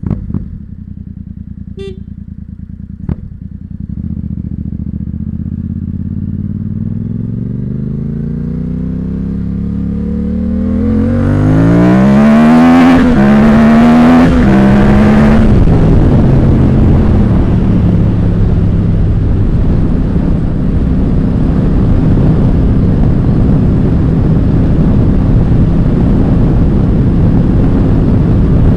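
Yamaha FZ-07 (MT-07) parallel-twin running through an aftermarket Ixil L3XB exhaust: it idles with two sharp clicks in the first few seconds, then pulls away with the engine pitch rising, shifts up a few times around the middle, and settles into steady cruising with rushing wind.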